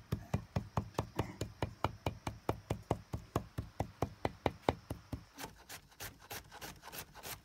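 A large knife chopping mutton into mince on a wooden chopping block, a steady run of heavy thuds about four or five a second. About five seconds in it changes to quicker, sharper knife chops through red onion on a cutting board.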